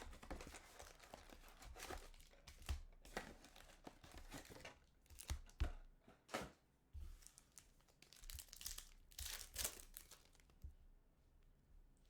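Plastic card-pack wrapping being torn open and crinkled by hand, in irregular rips and rustles that die away near the end.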